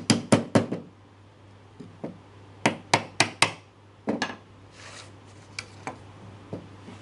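A hammer tapping a hardwood mitred frame, sharp wooden knocks in quick groups of three or four. Near the end comes a short scrape of wood on wood as the board slides in the frame's groove.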